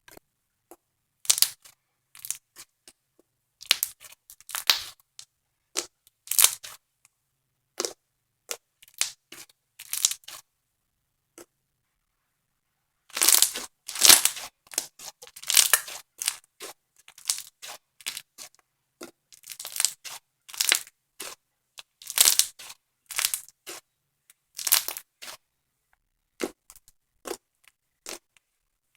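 Thick foam-bead slime being squeezed and kneaded by hand, giving irregular crackling and popping, thickest in a flurry about halfway through and again a little later.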